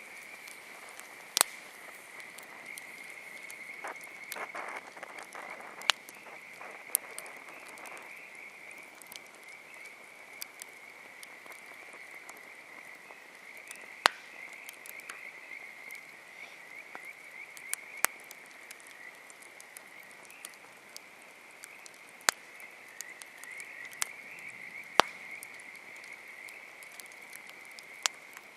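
Wood campfire popping with sharp, scattered snaps, about ten of them, over a steady chorus of frogs trilling. A softer stretch of fire crackle comes a few seconds in.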